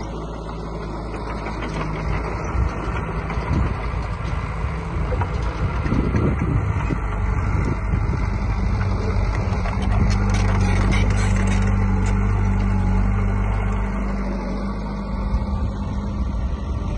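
Diesel engine of heavy earthmoving machinery running steadily, working harder and louder through the middle and easing off near the end.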